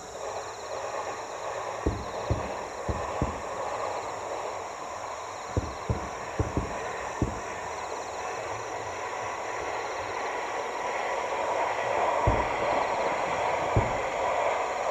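Distant aerial fireworks shells bursting, heard as dull low booms: a quick cluster in the first seven seconds, then two more near the end, arriving after the flashes have faded. Under them, a steady high insect trilling and a broad hiss that swells in the second half.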